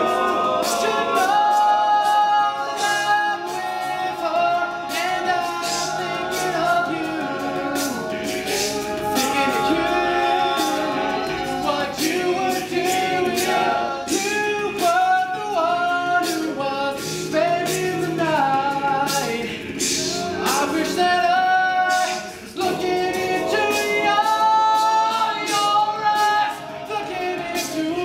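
All-male a cappella group singing a song live in close, layered harmony, with sharp percussive vocal strokes keeping time.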